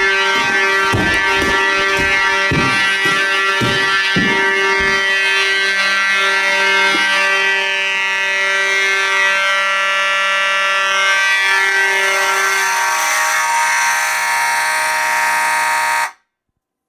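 Fire alarm horns, an Edwards 892-2B electromechanical horn and a Simplex 2901-9806 horn, sounding together in a loud, steady buzzing blare. A low pulsing beat comes about twice a second for the first five seconds. The sound cuts off suddenly near the end.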